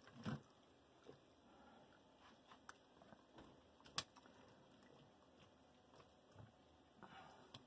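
Faint soft scraping and small clicks of a silicone spatula stirring chickpeas and sausage in a stainless steel pot, with one sharper click about four seconds in.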